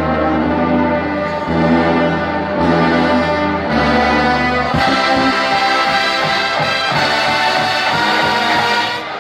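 A band's brass section playing a fanfare: held low brass chords at first, then about halfway through the full band comes in brighter with percussion, dropping away just before the end.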